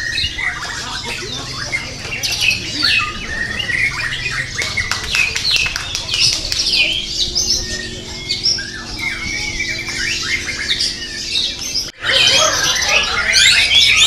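White-rumped shama (murai batu) singing a long run of varied whistled and chattering phrases. After a short break about 12 seconds in, the birdsong becomes louder and denser.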